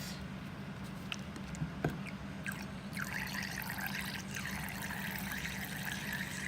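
Contact lens solution being poured from a bottle into a watery glue mixture, a trickle that becomes steady about three seconds in, with a few light clicks before it.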